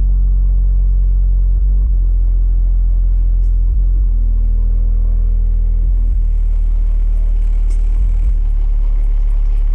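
A 10-inch Kicker L7 subwoofer in a custom horn enclosure playing a very loud bass test tone that steps down in pitch as it goes through the test sweep. The tone changes about every two seconds.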